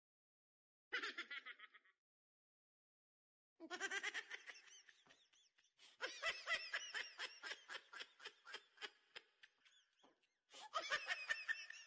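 High-pitched giggling laughter, a sound effect laid on in editing, in three bursts of rapid pulses with dead silence between them.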